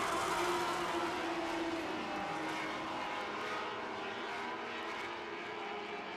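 Several small sprint-car engines running at race speed on a dirt oval, a steady engine drone that slowly fades as the field moves away. About two seconds in, one engine note falls in pitch as a car goes by.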